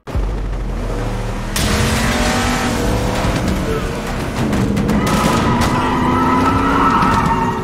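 Ram pickup truck's engine revving hard, its pitch climbing in the second half, with tyres squealing over the last few seconds.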